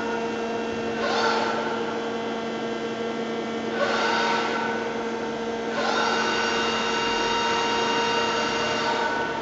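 TOS Varnsdorf WH 105 CNC horizontal boring mill running with a steady hum. Three times a motor whine rises quickly in pitch and then holds; the last one is held for about three seconds.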